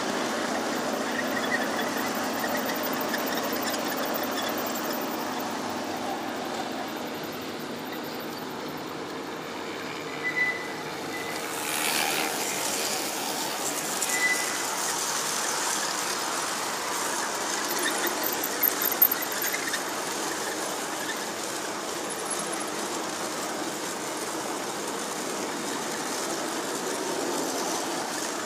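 G-scale model freight train, hauled by Santa Fe diesel locomotives, running past along curved track with a steady running noise, and two brief high squeals near the middle.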